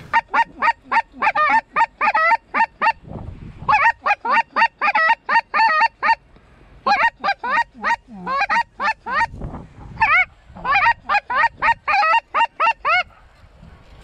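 Snow goose call blown in rapid high yelping honks, about four or five a second, in four runs with short pauses between, calling to incoming snow geese.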